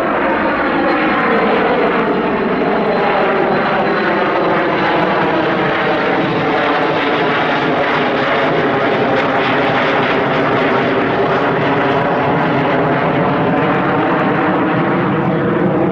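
Kawasaki C-1 transport's twin turbofan engines running loud and steady as the jet passes overhead. The noise carries a slowly sweeping, phasing whoosh that shifts in pitch as the aircraft moves.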